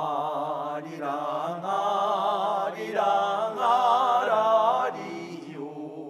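Men's voices singing together in harmony: a run of held notes with vibrato, getting quieter near the end.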